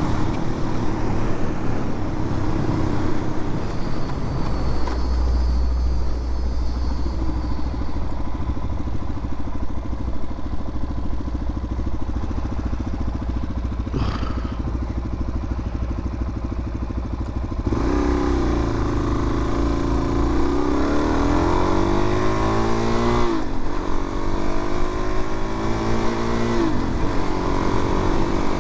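Suzuki DR-Z400's single-cylinder four-stroke engine running at a steady cruise. About two-thirds of the way through it accelerates: the pitch climbs, then drops back twice as the rider shifts up.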